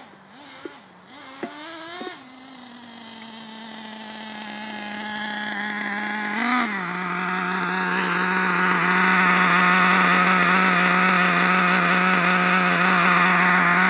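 Small nitro glow engine of an RC monster truck, with a few short throttle blips near the start and then a steady idle. A brief blip comes about halfway through, after which the idle settles a little lower, and the engine grows steadily louder.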